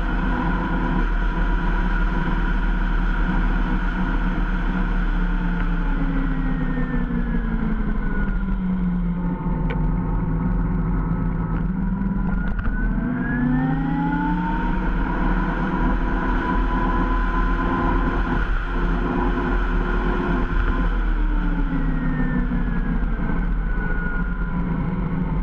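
Zero SR electric motorcycle's motor whining over wind and road noise. The whine falls in pitch as the bike slows about six seconds in, rises as it speeds up again around halfway, holds steady, then falls again near the end.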